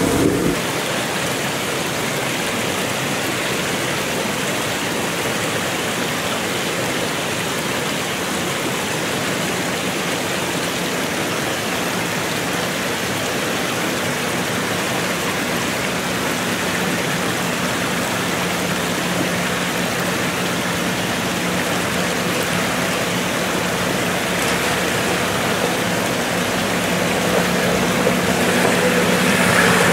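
Steady rush of running water in a rocky forest stream. The engine of an off-road SUV crawling down the stream bed grows louder over the last few seconds.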